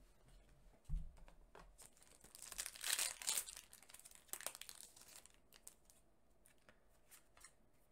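Foil booster-pack wrapper crinkling and tearing open, loudest from about two to three and a half seconds in, after a thump about a second in.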